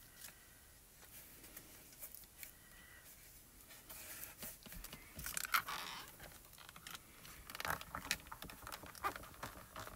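Hands handling a paper die cut and cardstock on a stamping platform: faint rustling and scraping of paper, with a short scuffing sound about five and a half seconds in and a few light taps near the end.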